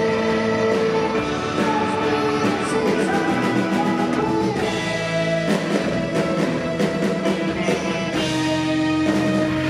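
Rock band playing live, with electric bass and drums under sustained chords and a singing voice.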